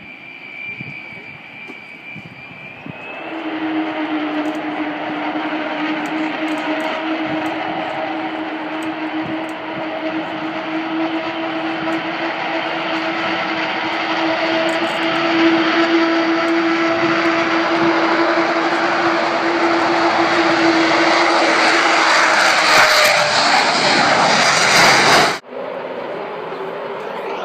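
Aircraft engines running at an airfield: a steady hum with a wide rush of engine noise that builds louder for about twenty seconds, then drops off abruptly near the end, leaving quieter engine noise.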